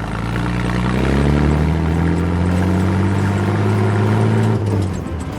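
Tanker truck engine sound effect, a low engine note whose pitch rises slowly as it pulls away, then cuts out about four and a half seconds in.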